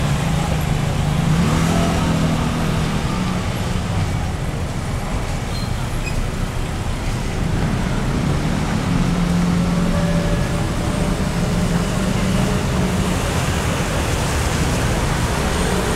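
Road traffic: motor vehicles running close by, with a steady low engine hum that fades and returns.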